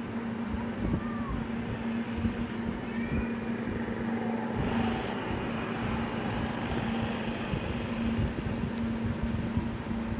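A motor running steadily with a constant hum, over rough outdoor noise with small knocks.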